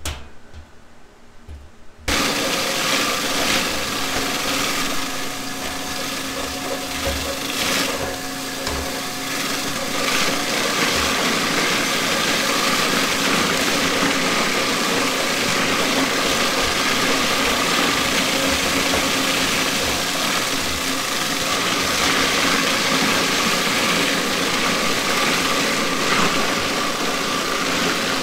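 Electric vegetable mincing machine running steadily while mincing cabbage: a constant motor hum with a steady whine. It starts abruptly about two seconds in, after light kitchen clatter.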